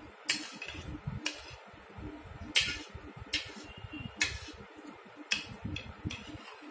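Metal spoon clinking and scraping against a ceramic plate while scooping up flattened-rice pilau, about seven sharp clinks roughly a second apart. Soft chewing sounds run underneath.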